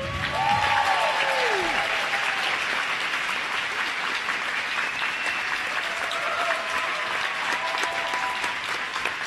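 Arena audience applauding, with a few voices calling out near the start.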